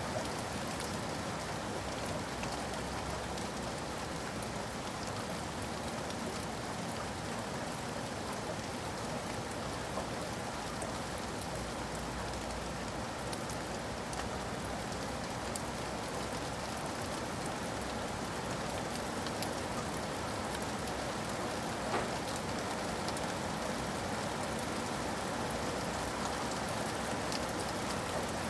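Steady rain falling on hard surfaces in a city, with scattered individual drop ticks and one sharper drop or click about two-thirds of the way through.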